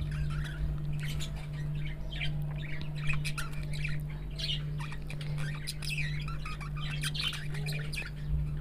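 Soft, wet flour dough being squeezed and kneaded by hand in a steel bowl, giving a run of irregular squelches and short squeaky smacks, over a steady low hum.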